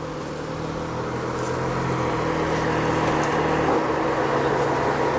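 Jeep Wrangler engine running steadily under load as the Jeep crawls up a rutted mud trail, a steady hum that grows gradually louder.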